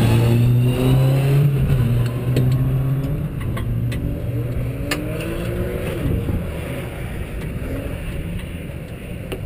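Mazda MX-5 Cup car's four-cylinder engine running with the car standing still, its note sliding down and getting quieter over the first few seconds before settling into a steady low hum. A few sharp clicks sound a couple of seconds in.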